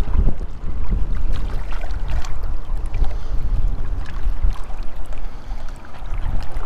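Wind buffeting the GoPro's microphone: a loud, gusty low rumble, with scattered faint clicks above it.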